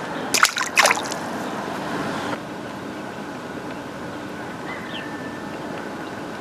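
Steady outdoor water ambience, a soft trickling wash, with a quick cluster of sharp clicks within the first second.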